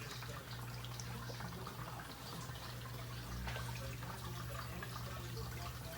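Alpine DIG370 pagoda water fountain running: water trickling and dripping down its tiers into the stone bowl, with a steady low hum beneath.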